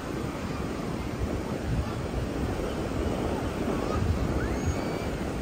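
Ocean surf washing on a beach, with wind buffeting the microphone in low, uneven gusts.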